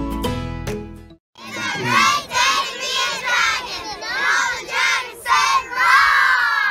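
A group of young girl cheerleaders shouting a cheer together in rhythmic bursts, ending in a longer drawn-out shout. Plucked-string background music plays for the first second and then cuts off.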